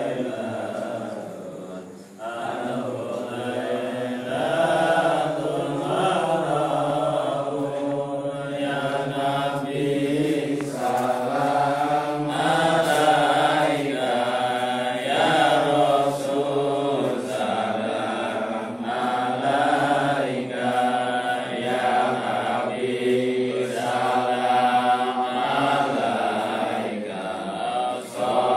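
A group of men chanting sholawat together, a continuous melodic chant of many voices in unison.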